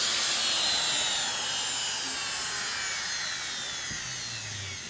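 A high-speed CNC spindle motor spinning down after being switched off, its whine falling steadily in pitch and fading.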